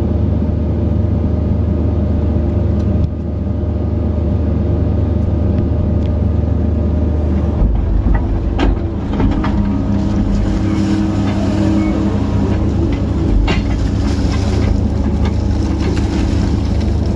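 Kobelco SK135SR excavator running under load, heard from inside the cab: a steady diesel engine drone with hydraulic tones that come and go as the boom and bucket work. The note shifts about halfway through, with a few clunks.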